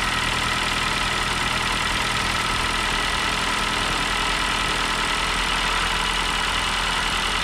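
2014 Ford New Fiesta's timing-belt four-cylinder engine idling steadily, not yet warmed up. It has a small, annoying tick from inside the engine that sounds like a tappet, valve or camshaft knocking.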